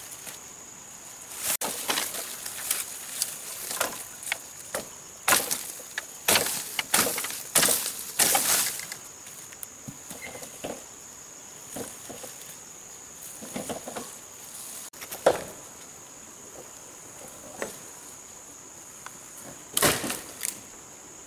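Cut bamboo stalks and their leaves rustling and crackling as they are dragged through undergrowth. The bursts come thick in the first half and sparser later, with another loud burst near the end. A steady high-pitched insect buzz runs underneath.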